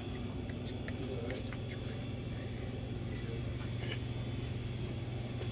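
Steady low hum of room tone with a few faint clicks.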